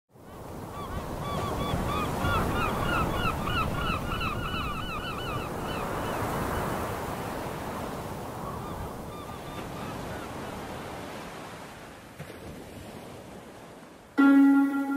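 A flock of birds calling rapidly over a steady rush of waves. The calls are thickest in the first half, then thin out as the wash fades. Music starts suddenly just before the end.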